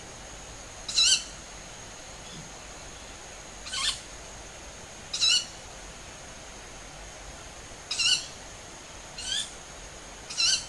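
Six short, shrill calls from unidentified birds calling at dusk, a second or two apart, from at least two birds; some calls rise in pitch at the end and others are flatter. A steady thin high tone runs underneath.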